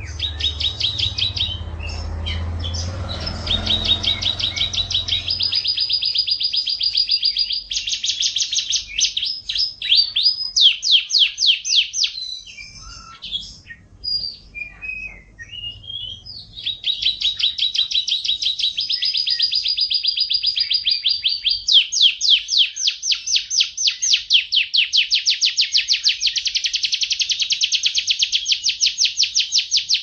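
Domestic canary singing long, fast trills of rapidly repeated high notes, moving from one trill to the next, with a break of scattered chirps about halfway through before the trills resume.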